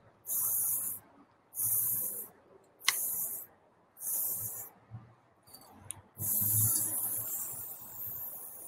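Aerosol spray paint can fitted with a skinny cap, hissing in short bursts: four quick sprays under a second each, then a longer one that trails off. One sharp click about three seconds in.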